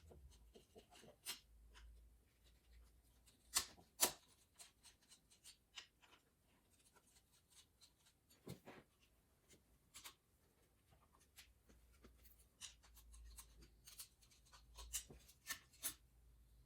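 Sparse light clicks and scrapes of a screwdriver and plastic and metal parts as a mains double wall socket is unscrewed and taken off its box, with two sharper clicks about three and a half and four seconds in.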